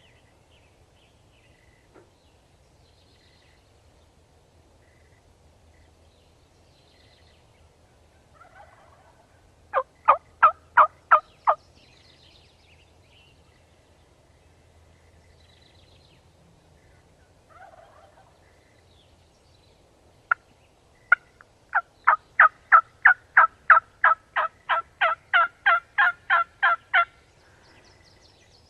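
Turkey yelping: a short run of about six loud, evenly spaced yelps about ten seconds in, then a longer run of about twenty about twenty seconds in, with a couple of fainter calls between.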